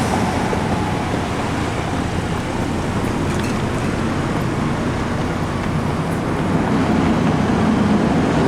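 Fire trucks' diesel engines running on a city street as the apparatus pulls away, mixed with traffic noise. A low engine note grows louder near the end.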